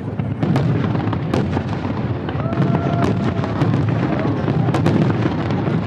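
Fireworks display going off in quick succession: many sharp bangs and crackles over a continuous low rumble.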